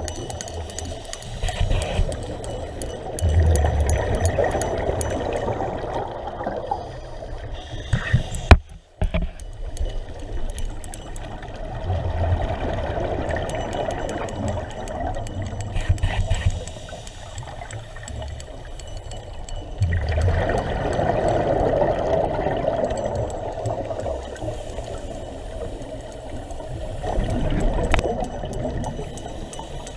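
Scuba diver's exhaled bubbles heard underwater, a few seconds of bubbling with each breath, coming back about every eight seconds over steady water noise. A single sharp knock, the loudest sound, comes about eight and a half seconds in.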